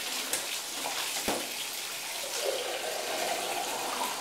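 Tap water running steadily and splashing into a bathtub, with a couple of sharp knocks about a second in.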